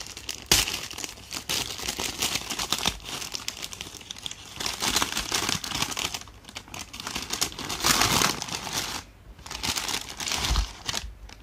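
A paper gift bag crinkling and rustling in bursts as it is handled and opened by hand.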